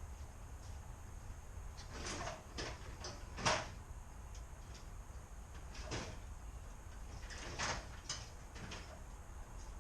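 Screwdriver clicking and scraping against the plastic marker-light lens of a truck side mirror as it is pried at a hidden tab: a handful of separate short clicks and scrapes, the sharpest about three and a half seconds in.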